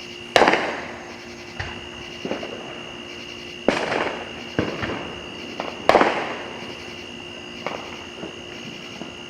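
Fireworks going off: about eight sharp bangs at uneven intervals, each trailing off in an echo. The loudest comes about half a second in and another near six seconds.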